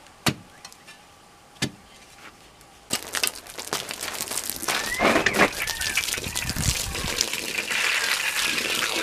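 Two sharp knocks, then from about three seconds in a garden hose running water into a freshly dug post hole: a steady splashing hiss that grows louder.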